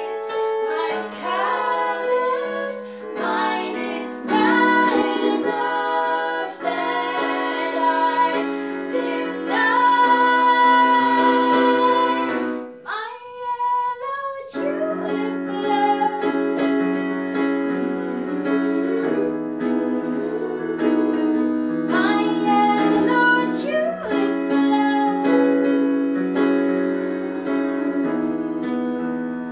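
A woman singing a slow song over electronic keyboard playing in piano sound, with a short break in the music about halfway through.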